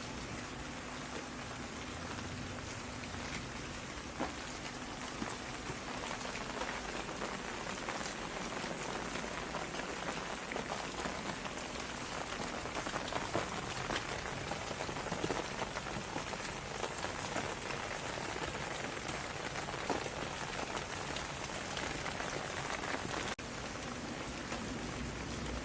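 Steady rain falling, with many separate drops heard striking a surface among the even hiss of the downpour.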